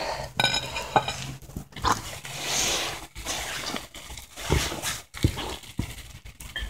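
A cast-iron skillet lid and a china plate being handled over a small twig-burning stove: a few sharp knocks and clinks, a brief squeak near the start, and a soft hiss about halfway through.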